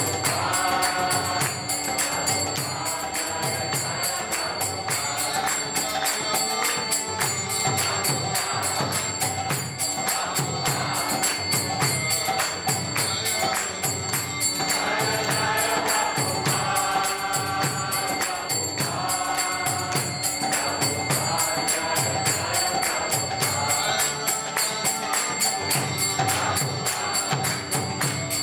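Kirtan: voices chanting together to a steady beat, with small brass hand cymbals (kartals) struck in an even rhythm.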